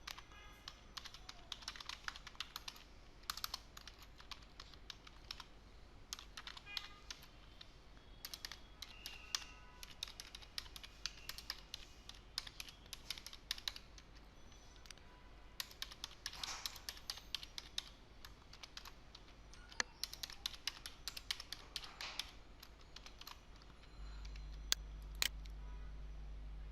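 Typing on a computer keyboard, irregular runs of keystrokes with short pauses, over a low electrical hum that gets louder near the end.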